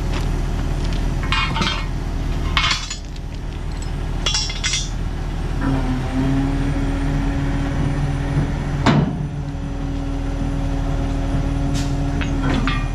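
An engine runs steadily while heavy metal parts clank and clink against each other several times as a part is slid off. A steady tone joins the engine about six seconds in.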